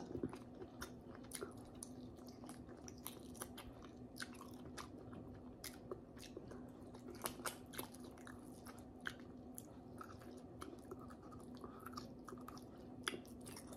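Quiet mouth sounds of chewing boiled pork hock, heard as soft, irregular wet clicks and smacks. A faint steady hum runs underneath.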